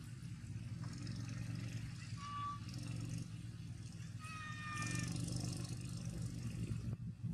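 Motorbike engines running on the road, a steady low hum. A brief high tone sounds about two seconds in, and a held tone of several pitches about four and a half seconds in.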